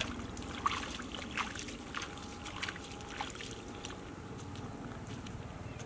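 Bare feet squelching and splashing through mud and standing water, about one step every two-thirds of a second, the steps growing fainter after about three seconds.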